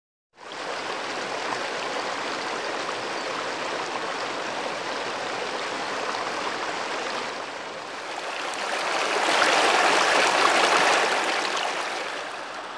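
River water rushing over and around boulders: a steady wash that swells louder for a couple of seconds about nine seconds in.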